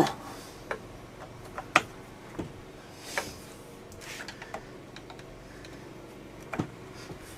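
Scattered light clicks and knocks of hand tools and small metal parts at uneven intervals, as a fastener is tightened during reassembly of a chainsaw, with a sharper knock about a second and a half in and another near the end.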